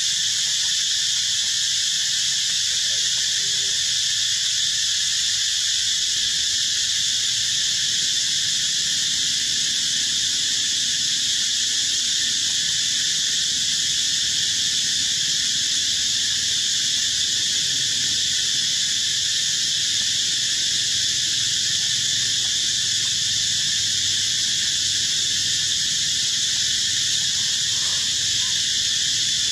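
Steady insect chorus in the forest, a continuous high-pitched drone with no breaks.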